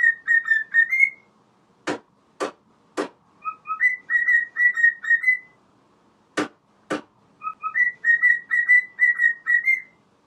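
A pet parrot whistling the same short tune over and over, about every four seconds: two lower notes, then a quick run of higher notes ending on a rising one. Sharp single clicks fall between the phrases, three and then two.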